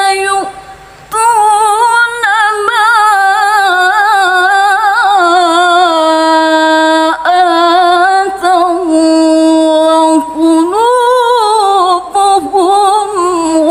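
A woman reciting the Quran in melodic tilawah style, holding long ornamented notes with a wavering pitch. After a short pause for breath near the start, the phrases follow one another with only brief breaks.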